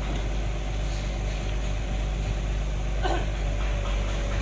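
Excavator diesel engine running steadily at idle, a low, even drone. A brief short sound cuts across it about three seconds in.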